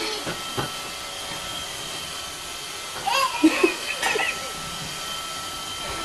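Roomba robot vacuum running with a steady whirring hiss and a thin, even whine. A baby riding on it gives a short burst of vocal sounds about three seconds in.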